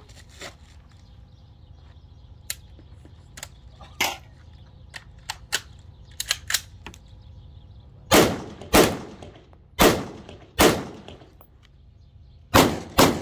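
Six loud rifle shots at an uneven pace in the second half, in two groups with a gap between them. Fainter sharp cracks, like shots at a distance, are scattered through the first half.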